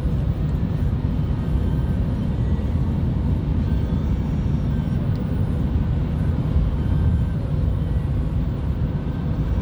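Steady low rumble of a vehicle engine, holding an even level with no horn blast and no rise or fall.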